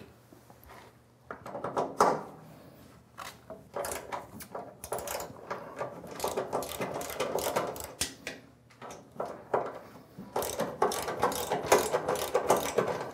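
Ratchet wrench with an extension and a 1/2-inch socket loosening the bolts that hold a snow blower's auger housing to its frame. A knock about two seconds in, then rapid ratcheting clicks in two spells with a short pause between.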